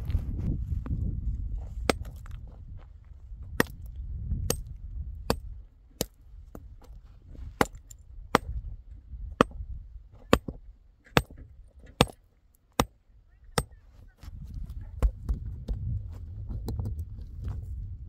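Rocks being thrown by hand onto a stony dirt track, each landing with a sharp clack: about a dozen clacks, one every second or so. Low rumbling noise at the start and again near the end.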